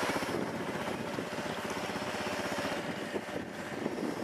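ATV engine running under load as the quad churns through deep snow, with a steady rapid pulse. It is a little quieter after the first half-second.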